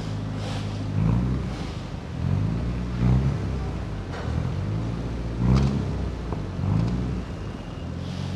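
Nissan Silvia S14's turbocharged engine revving, its pitch climbing again and again in short rises about once a second.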